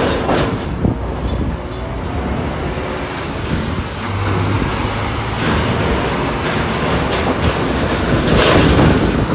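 Heavy diesel buses moving past: steady low engine rumble with a few sharp clunks scattered through it.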